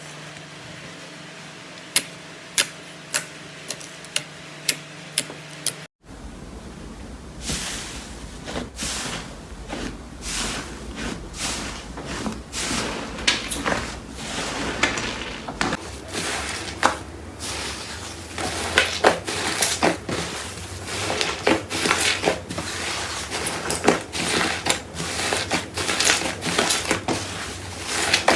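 Slime being pressed and worked by hand, popping with sharp clicks about twice a second. After a sudden cut about six seconds in, it gives a dense, uneven run of crackling, squishy pops.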